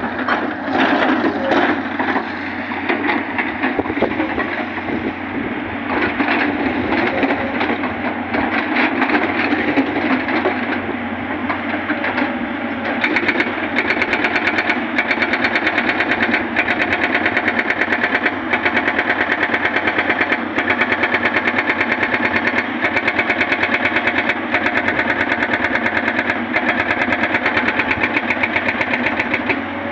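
Hydraulic rock breaker on a Tata Hitachi 210 excavator hammering into rock, over the steady hum of the excavator's engine. The blows are rough and uneven at first, then settle into a rapid, even hammering about a third of the way in.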